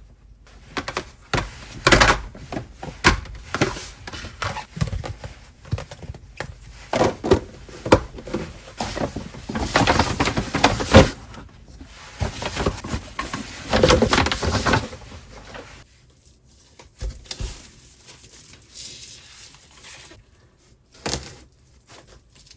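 Kitchen prep sounds: irregular knocks, clicks and clatter of utensils and containers being handled, busiest around the middle and sparser near the end.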